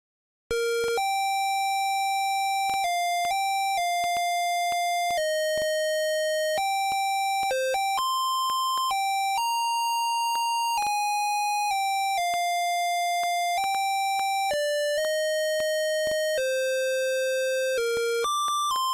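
Monophonic phone ringtone: a melody of single beeping notes of varying length, starting about half a second in after a short silence.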